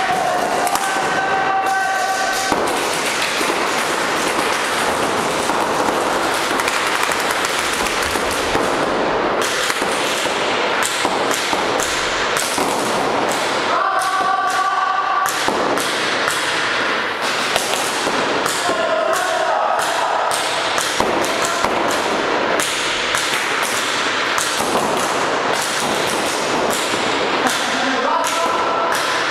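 Reball markers firing and balls smacking into bunkers and walls in an echoing gym hall, a dense clatter of sharp shots that is thickest in the second half. Players shout now and then, near the start, midway and near the end.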